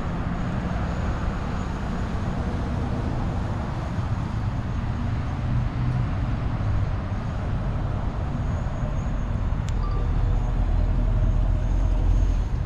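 Car engine running steadily with a low rumble, without revving.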